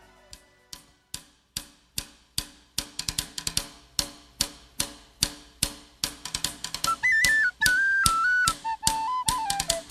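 Music: the opening of a Celtic folk-punk song, with a steady drum beat, then a tin whistle melody that comes in about seven seconds in.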